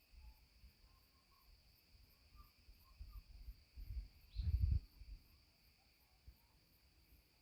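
Insects chirring steadily in a continuous high drone. About halfway through, a low rumbling thump, the loudest sound, passes briefly.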